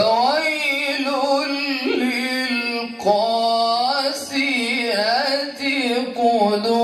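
A qari reciting the Quran in melodic tajweed style: one voice holding long, ornamented notes that bend up and down in pitch, with a short break about three seconds in.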